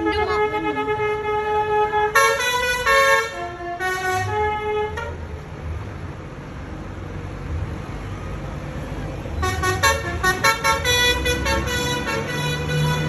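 Bus's Basuri 'telolet' multi-tone horn playing a tune: a held chord, then a run of stepping notes about two seconds in, a quieter gap of about four seconds, and a quick string of short notes from about ten seconds in.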